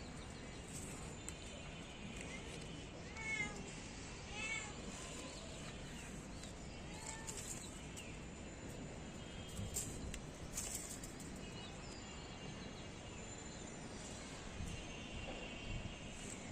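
A few short animal cries, each rising and falling in pitch, about three and four and a half seconds in, with a fainter one near seven seconds. Two soft clicks follow around ten seconds, over a steady faint background hiss.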